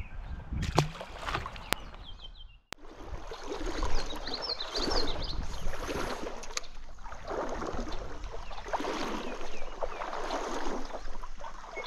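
Stream water sloshing and splashing in uneven surges.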